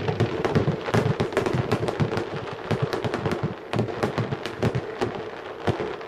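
Fireworks finale: a rapid, irregular barrage of bangs and crackles, several a second, as mines and shells are fired in quick succession.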